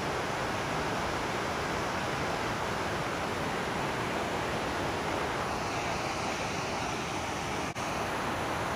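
Snowmelt-fed mountain creek rushing: a steady, full roar of running water.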